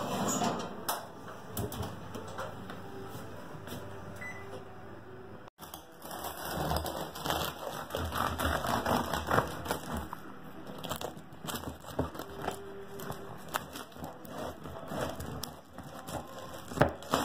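Serrated bread knife sawing through the crunchy crust of a sourdough loaf on a wooden board, a dense run of crisp cracks and crackles starting about five seconds in.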